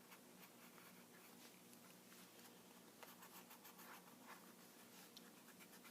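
Faint pencil scratching on paper: short, irregular drawing strokes, over a faint steady hum.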